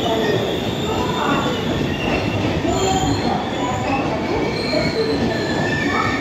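An express train's passenger coaches rolling past along a platform: a steady, loud rumble of wheels on rail, with short squeals from the wheels scattered throughout.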